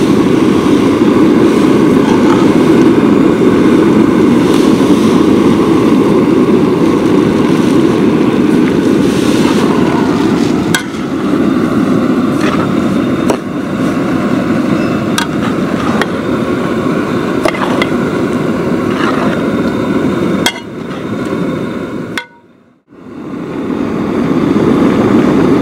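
Metal ladle knocking and scraping in a large aluminium pot as grated carrot, milk and sugar are stirred, with several sharp knocks in the second half. A steady, loud rushing roar runs under it and drops away briefly near the end.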